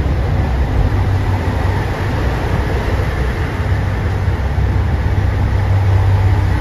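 JR Shikoku 2700 series diesel express train moving slowly along a station platform. Its engines give a steady low drone over rolling noise, growing a little stronger about four and a half seconds in.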